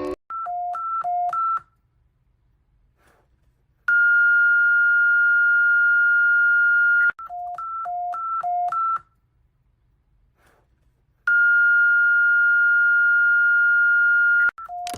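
An electronic emergency alert alarm. Each cycle is a quick run of alternating high and low beeps, a pause of about two seconds, then one long steady high tone lasting about three seconds. The cycle repeats twice and starts again at the end.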